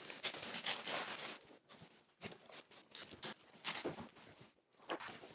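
Soggy cardboard packaging being opened and handled by hand: faint, irregular rustles and scrapes, busiest in the first second.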